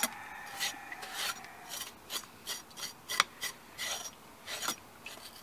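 Kitchen knife scraping in short, irregular rasping strokes, about two a second.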